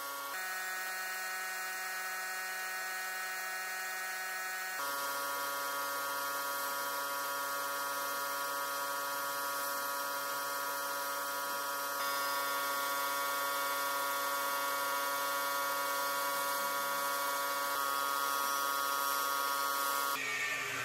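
Sandblasting in a blast cabinet: a steady hiss of air and abrasive from the blast gun over the steady hum of an electric motor, whose pitch shifts abruptly a few times. The blaster is running short of air pressure.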